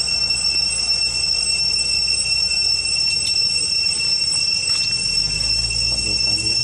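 Insects droning: a steady high-pitched whine that holds one pitch throughout, with a few faint clicks.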